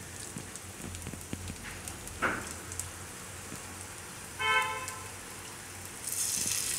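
Dudhi tikki patty frying gently in shallow oil on a flat steel pan, a soft crackling sizzle. About six seconds in a second raw patty goes into the hot oil and the sizzle jumps sharply louder. A short pitched tone sounds briefly about halfway through.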